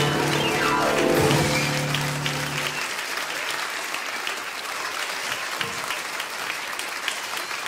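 The song's closing notes: a held chord with a quick descending run, ending about three seconds in. The audience applauds over them and keeps on applauding after.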